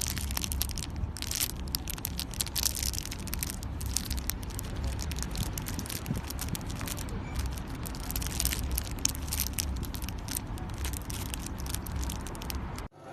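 Dense, irregular crackling and crunching of a soft crunchy material squeezed and crushed by hand, coming in clusters over a low steady hum. It stops abruptly near the end.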